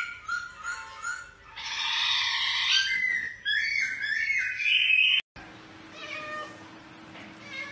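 A domestic cat making a quick series of short, high chirping meows, with a hissy stretch in the middle. The sound cuts off suddenly about five seconds in, and a quieter faint meow or two follows.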